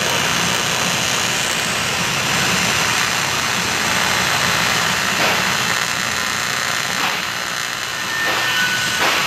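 AC TIG welding arc on 6061 aluminum, buzzing steadily as the bead is laid, with a few short crackles about every two seconds.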